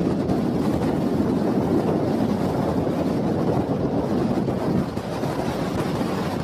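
Strong wind buffeting the microphone: a steady, low rushing noise.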